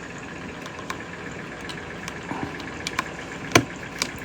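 Scattered small plastic clicks and knocks from an artisan keycap being pushed and worked onto a mechanical keyboard switch that it fits too tightly, with one louder click about three and a half seconds in. A steady background hum runs underneath.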